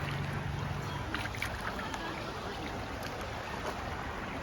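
Steady rushing of shallow creek water, with a low steady hum in the first second and faint distant voices.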